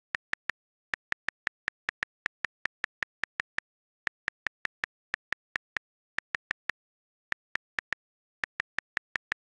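Tablet on-screen keyboard clicks as emojis are tapped in one after another: quick runs of sharp ticks, about five a second, broken by short pauses.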